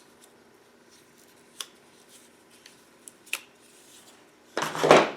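Metal hand tools being handled in a toolbox: two small clicks, then a short loud clatter near the end as tools are shifted around.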